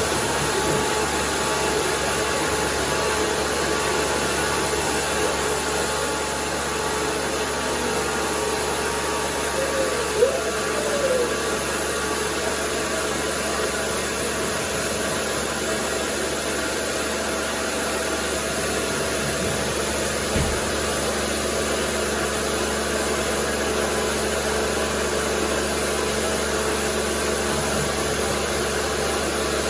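Karcher electric pressure washer running steadily, its motor and pump humming under the hiss of the high-pressure spray, with a brief knock about ten seconds in.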